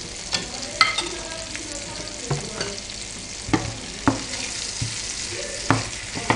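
Butter sizzling in a non-stick frying pan around boiled, peeled potato chunks, a steady hiss broken by about eight sharp knocks and clicks spread through it.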